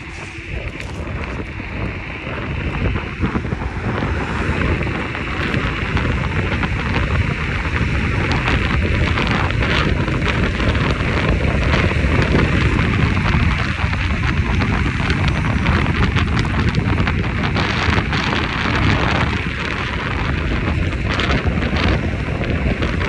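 Loud, gusting wind buffeting the microphone, a rough rumbling noise that rises and falls throughout.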